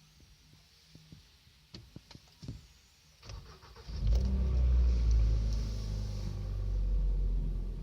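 2015 Kia Rio engine being started: a few light clicks, then the starter cranks and the engine catches about four seconds in and runs loudly, easing slightly before dropping away at the end. The owner is recording it to show the dealer an engine knock.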